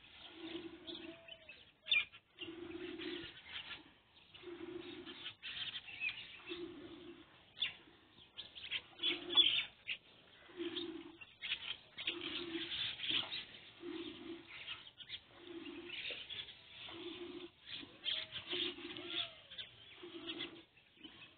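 A water buffalo being milked by hand, with streams of milk hissing irregularly into a steel pot. Under the squirts a low tone repeats about every 1.3 seconds.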